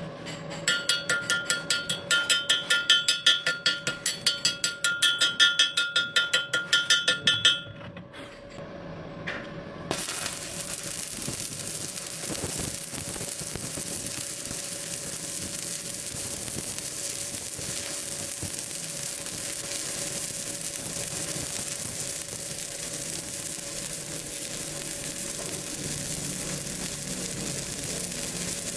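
Electric arc welding: a steady crackling hiss of the arc that starts abruptly about ten seconds in and holds even. Before it, for several seconds, a fast, even pulsing of about six beats a second, with a steady whine.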